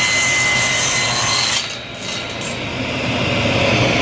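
Table saw blade cutting through a wooden board pushed on a sled. The cut ends abruptly about a second and a half in, and the saw keeps running free.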